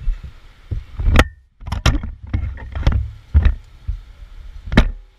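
A string of sharp, irregular knocks and thumps, about nine in five seconds, with the loudest near the end.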